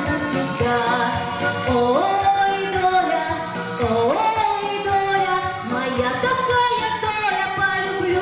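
A song: a singer holding long notes, sliding up twice, over instrumental backing music.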